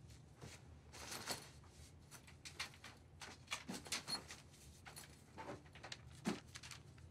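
Clothes being stuffed into a fabric backpack: faint, irregular rustling of cloth and the bag, with soft knocks and scuffs as things are pushed in.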